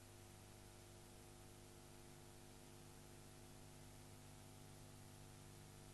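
Near silence: a faint, steady electrical hum with hiss underneath, the background noise of an animation with no soundtrack.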